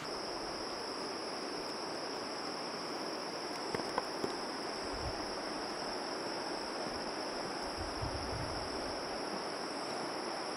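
A steady, high-pitched chorus of insects, with wind buffeting the microphone now and then and a few faint clicks about four seconds in.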